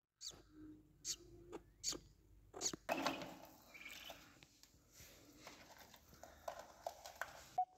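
Budgerigars chirping: short high cheeps about once a second, then a busier stretch of softer chatter mixed with rustling.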